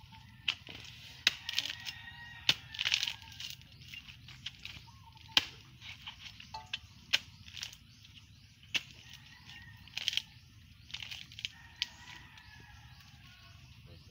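Irregular sharp chopping strikes of a hand tool biting into a soft, rotting palm trunk, about one blow a second, with crumbling wood in between.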